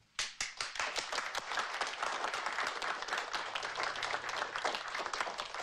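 A small group of people clapping their hands in applause. It starts abruptly just after the start and thins out near the end.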